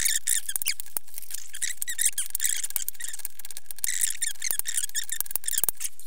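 Chef's knife chopping a bar of dark chocolate on a wooden cutting board: irregular knocks of the blade on the board mixed with squeaky, crunchy scraping as the chocolate breaks into shavings.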